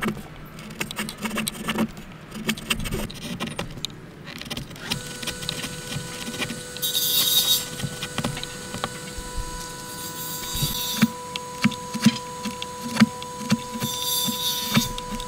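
A steel chisel worked by hand into hardwood: repeated short knocks and scrapes as it pares the joint, with a few brief hissing strokes as shavings are sliced off. A faint steady hum comes in about five seconds in.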